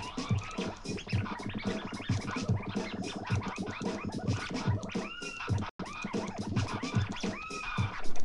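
A looped electronic drum beat with record-scratch effects, played on three virtual turntable decks in FL Studio's Fruity Scratcher. The scratches rise and fall in pitch over steady low drum hits. The sound cuts out for an instant about two-thirds of the way through.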